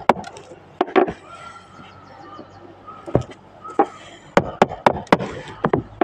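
A hammer striking the handle of a screwdriver used as a chisel on a hard surface: about ten sharp, irregular knocks, a few at first, then a quicker run of blows in the second half.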